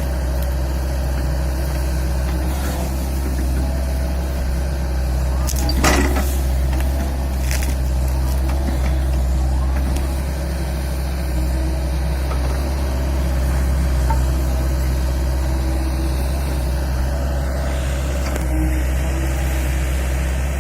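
LiuGong 908E excavator's diesel engine running steadily with a low drone, with a sharp clank about six seconds in.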